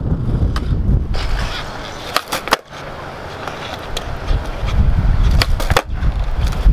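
Skateboard wheels rolling on concrete, with two pairs of sharp clacks, a little over two seconds in and again near six seconds, as the board is popped and lands.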